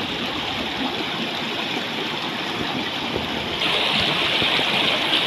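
Rushing water of a rocky mountain stream running over stones, a steady hiss that turns suddenly louder and brighter about three and a half seconds in.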